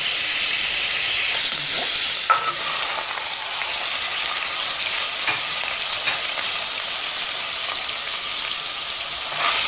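Sliced onions frying in hot sausage fat in a metal pot: a steady sizzle, with a few short clicks of a metal slotted spoon against the pot, the sharpest a little over two seconds in.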